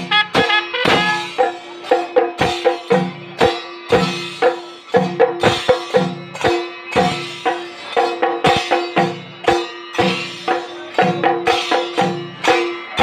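A troupe of chenda drums beaten with sticks in a fast, dense rhythm, with a curved kombu horn sounding a steady held note over the strokes.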